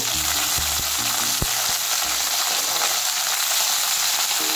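Whole green chillies frying in a little hot oil in a stainless steel kadhai: a steady, loud sizzle.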